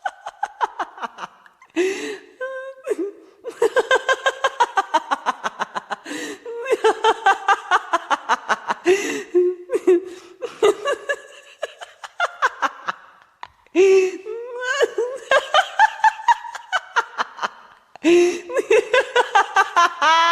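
Prolonged contagious laughter from one person: long runs of rapid ha-ha pulses, several a second, falling in pitch across each run, broken by sharp gasping in-breaths.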